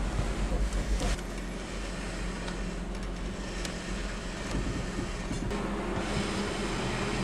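Electric induction motor and gearbox of a Holden Ute EV conversion driving slowly, a steady low hum and whine with road noise, heard from inside the cabin. A low rumble fills the first second.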